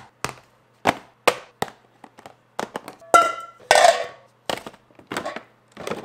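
Groceries and kitchenware being set down one by one on a granite countertop: a string of sharp, uneven knocks and taps, with two louder clangs about halfway through that ring on like metal pans or a bowl.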